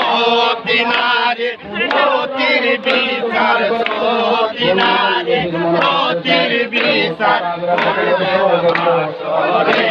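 Crowd of men chanting a Sufi zikr together, loud and rhythmic, many voices repeating the phrase in unison with no break.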